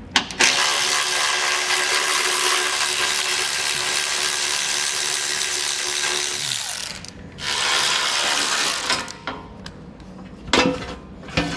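Cordless electric ratchet running as it backs out the 13 mm bolts holding a Jeep Cherokee's front skid plate. One long steady run of about six seconds is followed by a shorter run of a second or two. A few light clicks come near the end.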